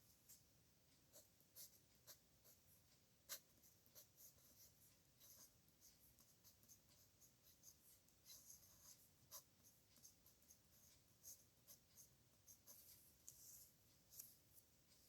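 Faint scratching strokes of a pen nib on paper during handwriting, in short irregular bursts, with a sharper tick about three seconds in.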